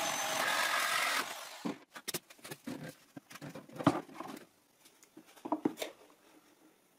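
Corded electric drill with a hole saw cutting through thin plywood for about a second, then stopping. It is followed by scattered light knocks and clicks as the wooden box and the vacuum hose are handled.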